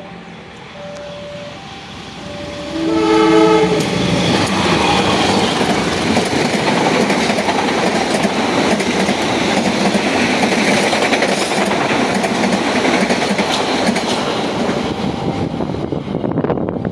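A train horn gives one short blast about three seconds in. The train then passes close by with a loud, steady rumble and wheels clattering over the rail joints, easing off near the end.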